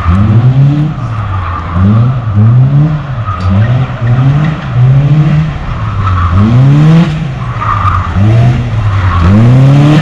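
Small kit car driven hard in tight circles, its engine revving up and down about once a second while the tyres squeal and skid.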